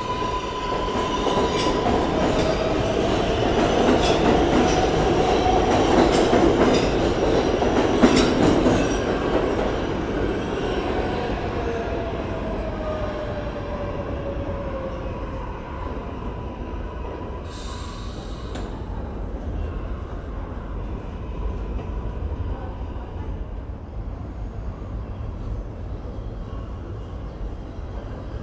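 R188 subway train pulling out of the station: its electric motors whine with a gliding pitch while the wheels click over rail joints. It is loudest in the first ten seconds, then fades into the tunnel to a low rumble, with a short hiss about eighteen seconds in.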